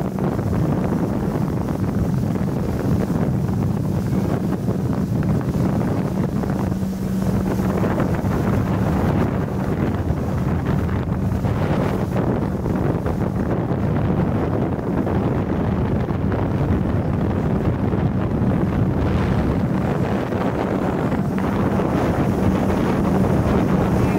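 Wind buffeting the microphone aboard a moving boat, over the steady hum of the boat's motor.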